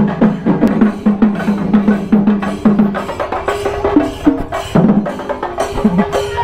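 Procession drums beaten in a fast, continuous rhythm, with a steady held low note sounding under the strokes.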